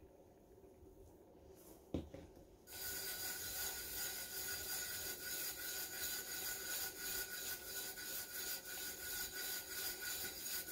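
A single knock about two seconds in, then a palm rubbing loose glitter into the sticky double-sided adhesive vinyl on a tumbler: a steady scratchy rubbing that goes on to the end.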